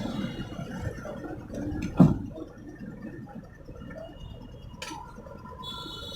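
A single sharp knock about two seconds in and a lighter click near five seconds, over a low background rumble.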